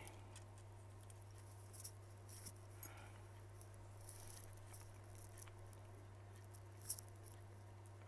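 Faint small clicks and taps of a phone's circuit board and a metal shield being handled, over a steady low electrical hum, with one sharper click about seven seconds in.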